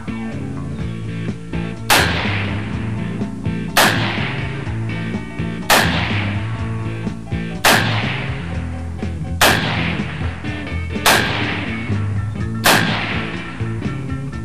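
Seven rifle shots from a 16-inch-barrelled rifle chambered in 35 Gunner, one about every two seconds, each followed by a fading echo, with guitar music underneath.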